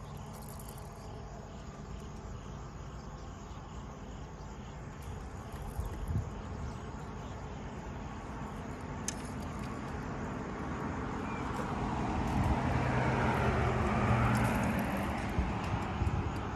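A vehicle passes by: its sound builds from about ten seconds in, is loudest around fourteen seconds and then fades. Faint crickets chirp underneath, with a few light clicks of fishing tackle being handled.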